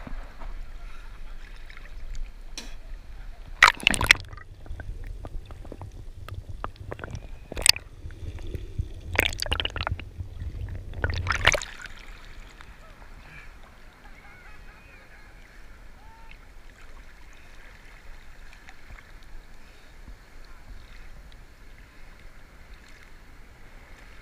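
Sea water splashing and sloshing around a camera at the waterline in breaking surf, with a low rumble and several sharp splashes over the first half. Then a quieter, even hiss of foam and shallow water washing.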